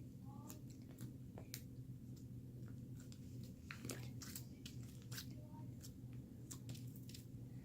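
Crunchy slime with small hard bits mixed in being squeezed and pressed by hand, giving faint, irregular crackling clicks.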